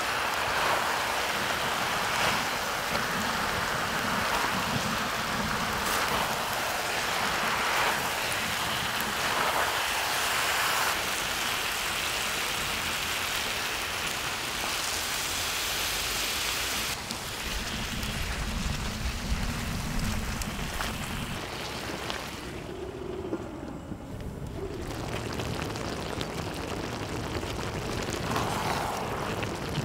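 Dakgalbi sizzling on a hot cast-iron cauldron lid, with wooden spatulas stirring and scraping the chicken and cabbage. Water is poured in partway through, and after that the sizzle sounds lower and duller.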